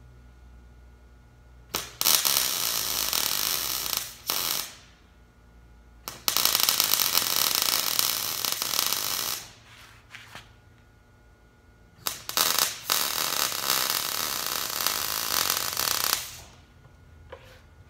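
MIG welder arc crackling as a steel turbo exhaust pipe is welded in three runs of a few seconds each, starting and cutting off abruptly, with quiet shop hum between them.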